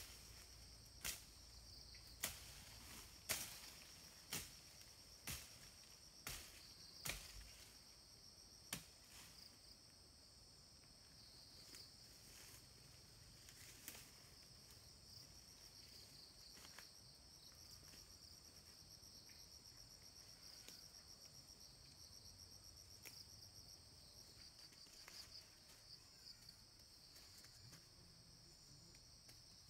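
Faint, steady high-pitched insect chorus trilling throughout, with a run of sharp knocks about once a second during the first nine seconds, then a few scattered fainter taps.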